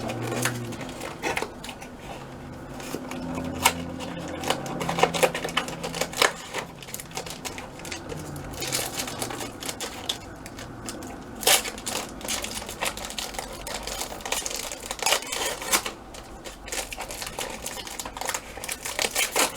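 Scattered clicks, taps and rattles of a Polaroid Time Zero OneStep camera and an SX-70 film pack being handled as the film is loaded into the camera.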